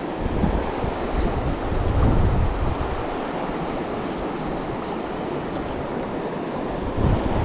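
River water rushing over a rocky riffle, a steady wash, with wind buffeting the microphone in low gusts about two seconds in and again near the end.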